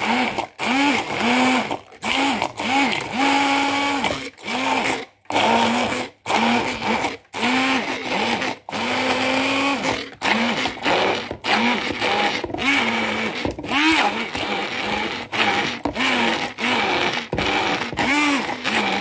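Moulinex stick blender blending a thick garlic, ginger and onion sauce in a plastic beaker, switched on and off in quick presses. Its motor whine rises and falls in pitch with each press, a few held a little longer.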